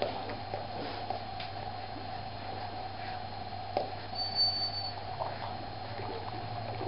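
Newborn puppies suckling at their mother: small smacking clicks over a steady hum, with a brief high squeak about four seconds in.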